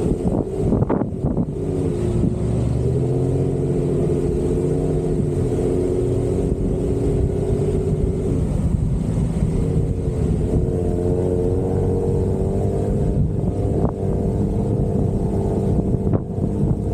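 Jeep engine running under load off-road, its pitch climbing about two seconds in, easing off around eight seconds and climbing again, over a heavy low rumble.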